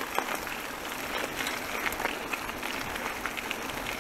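Bicycle tyres rolling over a wet gravel track: a steady hiss scattered with many small clicks and crunches of grit.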